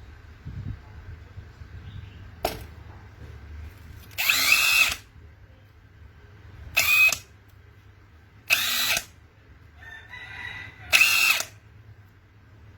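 Bosch cordless hand drill run in four short bursts, each about half a second to a second long, its motor whining up at the trigger and stopping when released.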